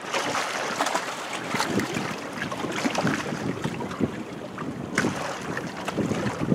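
Wind buffeting the microphone over small waves splashing and lapping against shoreline rocks, an uneven wash broken by many short splashes.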